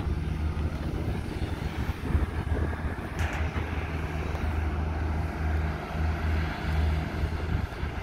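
Diesel engines of a Caterpillar hydraulic excavator and a dump truck running with a steady low hum while the excavator digs and loads dirt. A brief rush of noise comes about three seconds in.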